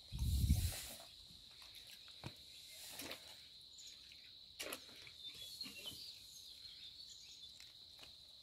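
Quiet outdoor ambience: insects droning steadily at a high pitch, with a few faint clicks and chirps scattered through. A brief low rumble on the microphone in the first second is the loudest sound.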